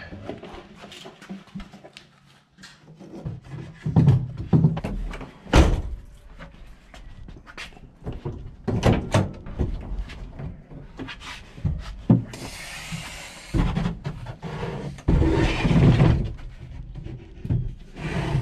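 Irregular wooden knocks and thumps from a plywood dresser and its panels being handled and set in place, with a brief rushing noise about twelve seconds in.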